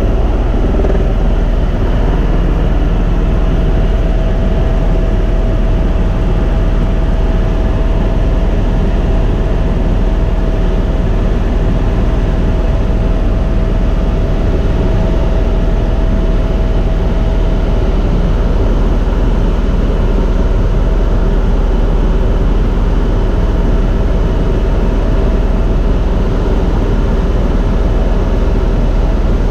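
Tour helicopter in cruise flight heard from inside the cabin: the steady, loud drone of its rotor and turbine engine with a deep rumble underneath. A thin steady whine runs over it and fades about two-thirds of the way in.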